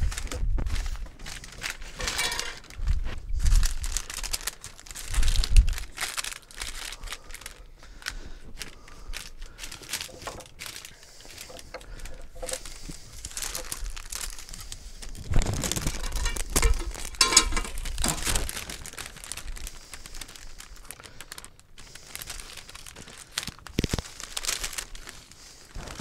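Paper sheets crinkling and rustling as they are pressed and smoothed by hand around a steering-wheel rim over fresh filler, in irregular handling noises with a busier stretch a little past halfway.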